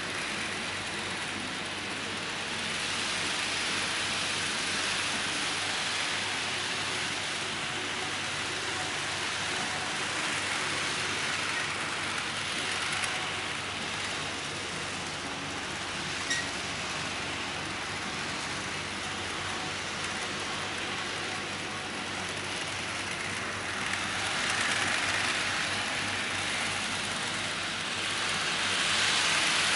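HO-scale model trains running on the layout: a steady rolling hiss of small metal wheels on the rails and the whir of the locomotive motors, with a couple of faint clicks midway and getting louder near the end.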